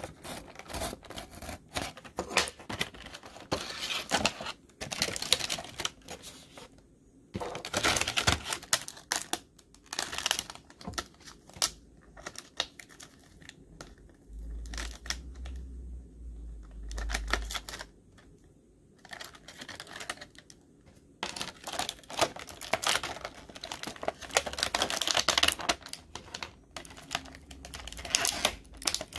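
Hands working a clear plastic blister pack and its cardboard card: crinkling plastic with many irregular clicks and taps, broken by a short quiet stretch past the middle.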